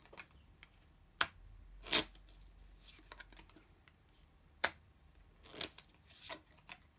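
Lenormand cards being laid out on a table: about five separate sharp snaps and taps, the loudest about two seconds in, with quiet between.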